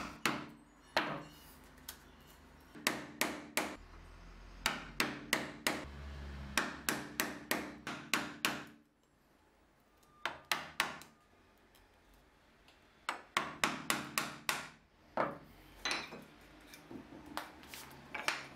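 A wood chisel struck with a mallet, chopping waste out of a dovetail joint: quick runs of sharp knocks with short pauses between them, and two brief silences about halfway through.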